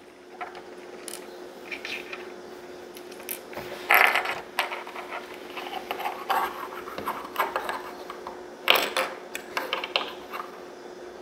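Small plastic LEGO pieces clicking and clattering on a wooden tabletop as they are handled and set down, with louder bursts of clatter about four seconds in and again near nine seconds.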